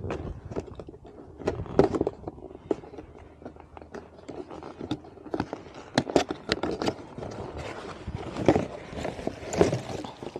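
Hands handling new K&N replacement air filters and their packaging: irregular taps, knocks and short scrapes.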